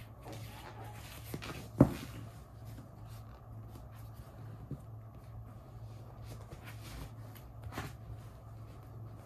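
A foam exercise mat being handled, lifted and rolled up on a tiled floor: soft scuffs and small clicks, with one sharp thump about two seconds in, over a steady low hum.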